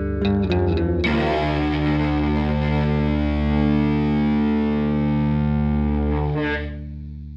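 Guitar played through distortion and effects: a few quick picked notes, then a chord struck about a second in and left to ring. A second strum comes near the end and the sound starts dying away, the close of the song.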